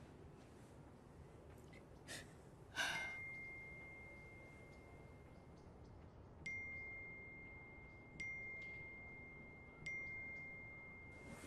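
A woman's sigh about three seconds in, then a thin high tone held steadily. Over it, three bright chime strikes ring about 1.7 s apart, each fading away.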